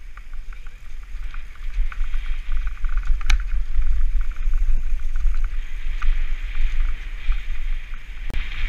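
Wind buffeting the helmet-mounted action camera's microphone as a mountain bike descends a dirt trail, over rapid ticking from the bike's freehub as it coasts. A sharp knock about three seconds in and another near the end, from the bike jolting over bumps.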